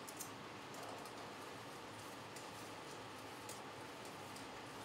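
A few faint clicks of metal kitchen tongs being handled over a steady low hiss.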